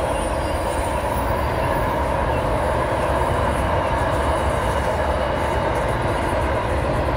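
Freight train rolling past, with a steady, even rumble of its wagons on the rails.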